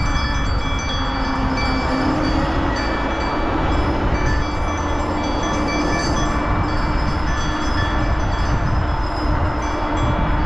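Wind and road rumble on a GoPro microphone during a bicycle ride, loud and steady, with a steady hum of several held tones over it.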